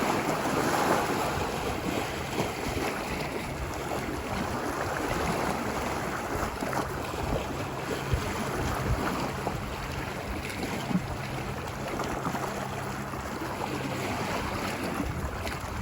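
Ocean surf washing onto a beach: a steady rush of waves.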